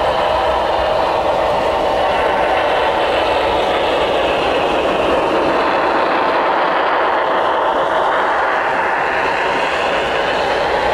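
HO-scale Union Pacific Big Boy 4-8-8-4 model steam locomotive running with its onboard sound system playing steam-engine sound, steady and loud as it passes close by, with the coal hopper cars rolling on the track behind it.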